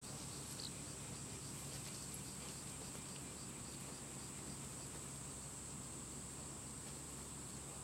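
Steady high-pitched insect chorus from the grass, like crickets, with a faint low steady hum underneath.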